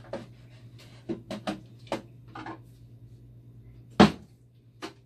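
Clicks and knocks of plastic parts and fittings being handled inside a dialysis machine as the old heat exchanger is worked loose. There are a few light knocks in the first two and a half seconds and one sharp, loud knock about four seconds in, over a low steady hum.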